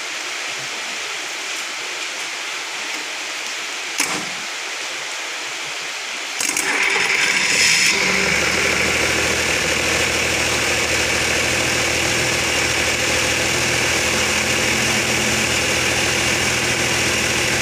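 Komatsu 6D95 six-cylinder diesel engine cranked on its starter about six seconds in, catching after about a second and a half and then idling steadily after repair. Before the start there is a steady hiss with a single click.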